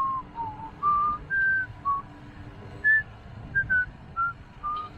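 A person whistling a tune: about ten short clear notes hopping up and down in pitch, over a low steady hum.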